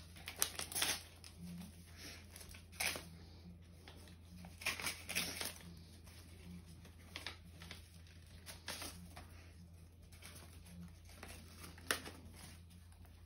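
Paper being handled as a greeting-card envelope is torn open and the card slid out: short, irregular rustles and crinkles, with a sharper tick near the end, over a steady low hum.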